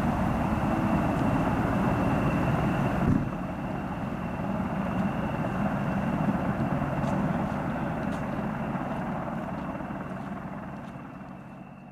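AH-64 Apache helicopter low over the airfield on its landing approach: rotor and twin turboshaft engine noise with a steady high whine. The sound drops sharply about three seconds in, then fades out toward the end.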